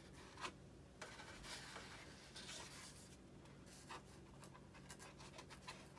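Faint rubbing and scraping with a few soft clicks as the foam vertical fin of an RC model jet is handled and lined up on the fuselage, over a low steady hum.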